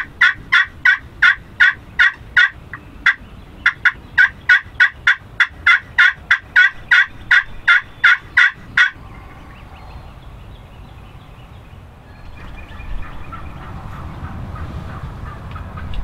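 Turkey yelping: a long, even series of about two dozen loud hen-type yelps at about three a second, with one short pause, stopping about nine seconds in.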